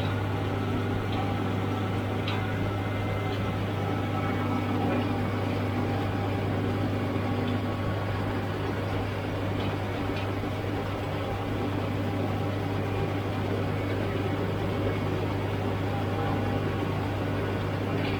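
A tractor runs at a steady engine speed, powering a McHale V660 pre-cutter round baler. It is heard from inside the cab as a constant low drone.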